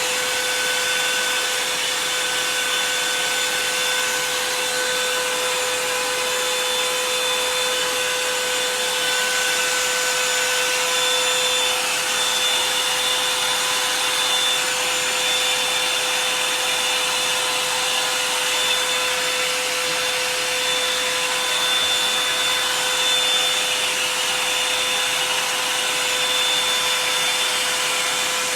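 Handheld hair dryer blowing steadily, a constant whooshing airflow with a steady motor whine.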